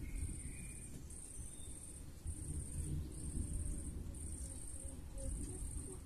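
A cricket-like insect calling: a high, thin buzz broken into even pulses just under a second long, about one a second, over a low rumble.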